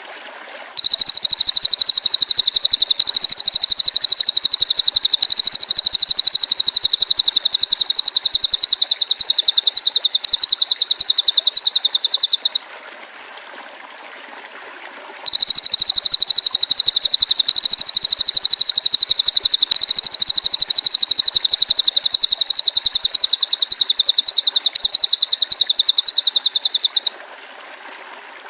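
Masteran recording of an animal call used to train songbirds: a loud, high-pitched, very rapid and even buzzing trill in two long bouts of about twelve seconds each, with a short pause in the middle, over a faint background hiss.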